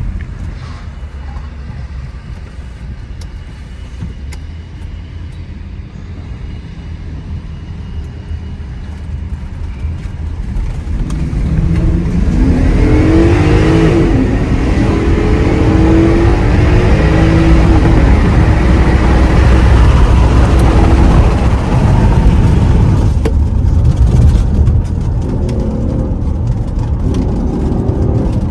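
Volkswagen Touareg's 4.2-litre FSI V8 heard onboard: a low rumble with road noise at first, then about twelve seconds in the engine is driven hard, its note climbing under strong acceleration, before it eases off somewhat after about twenty-three seconds.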